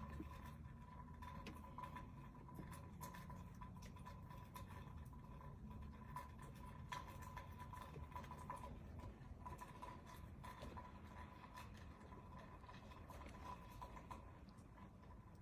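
Near silence: faint room tone with a thin steady hum and scattered light ticks.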